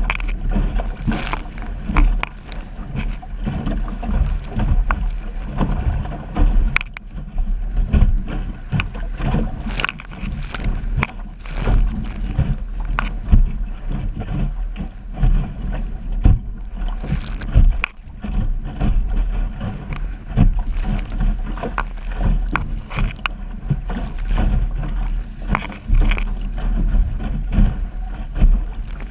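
Small sailing dinghy driving through choppy water: a steady rumble of wind and rushing water, broken by frequent irregular slaps of waves against the hull.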